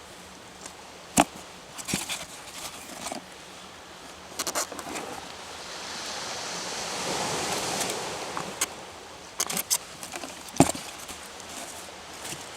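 A sea wave washing in, swelling and fading away over a few seconds, with scattered sharp knocks and clicks from something being handled close by.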